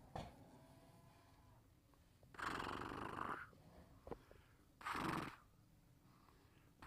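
Cows breathing out hard close by. There are three noisy breaths, each about a second long, spaced a couple of seconds apart.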